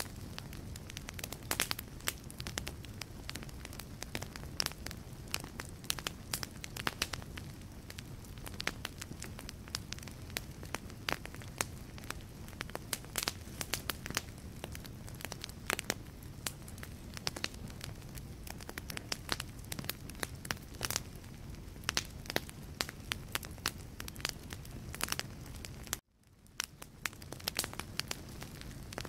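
Wood fire burning in a fireplace: a steady low rumble of flames with many sharp, irregular crackles and pops from the burning logs. About 26 seconds in, the sound cuts out suddenly and then fades back up.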